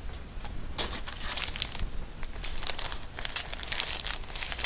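Clear plastic bag crinkling in bursts as a graded comic slab is handled in it, starting about a second in.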